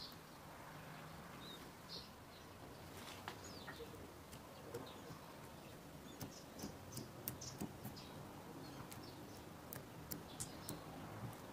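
Soft wet clicks and squeaks of fingertips pressing into oiled balls of dough in a glass dish, with a quick run of small clicks in the second half.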